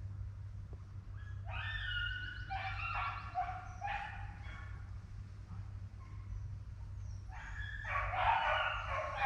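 Rabbit hounds baying as they run a rabbit's trail, several dogs crying at once. One spell of drawn-out cries begins about a second and a half in, and a louder one starts near the end.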